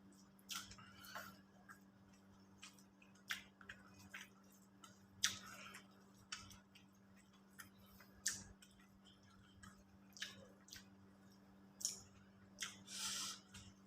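A person eating South Indian food: scattered short wet clicks and smacks of chewing and handling the food, about a dozen, faint, over a steady low hum.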